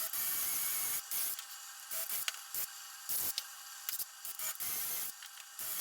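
Irregular strokes of something rubbing or scraping across wood, a dozen or so short hissy passes of uneven length.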